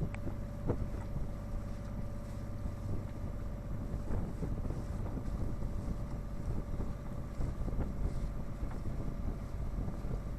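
Westerly Merlin sailing yacht under way: wind buffeting the microphone over the rush of water, with a faint steady hum.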